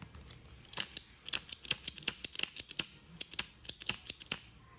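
Rapid, irregular series of sharp metallic clicks, about twenty in all, from the mechanism of a vintage lighter being worked over and over.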